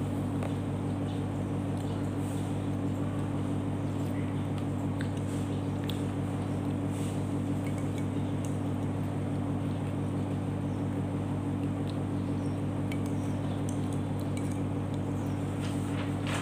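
A steady low mechanical hum, unchanging throughout, with a few faint clinks of a metal spoon against a china plate.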